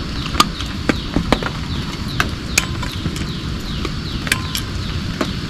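Heavy drops tapping irregularly on a tent over a steady hiss of rain, several sharp taps a second at uneven spacing.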